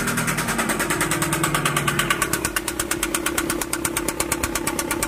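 Chevrolet Cruze petrol engine idling just after starting, with a rapid, even knocking and rattling from inside the block whose cause is not yet known.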